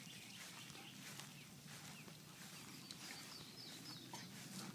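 Near silence: faint outdoor background, with a bird chirping faintly several times in quick succession about three seconds in.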